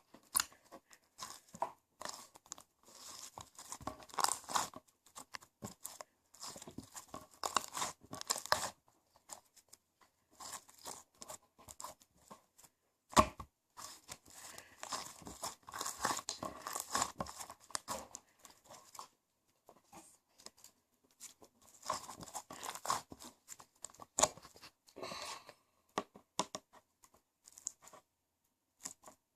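Hands playing with slime, making bursts of crackling, tearing sounds as it is pressed and pulled apart, with short pauses between. One sharp click about thirteen seconds in.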